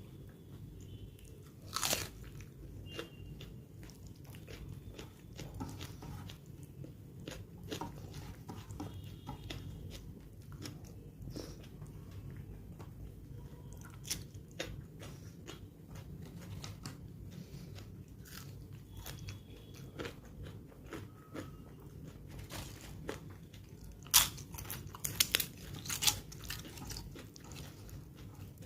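Close-miked chewing and biting of a khichdi meal with crunchy fried sides, with sharp crunches throughout. The loudest are one about two seconds in and a quick run of crunches near the end.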